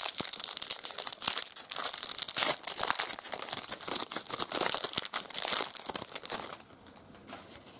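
Foil trading-card pack wrapper crinkling and tearing as it is pulled open by hand, with many sharp crackles; it dies down about six and a half seconds in.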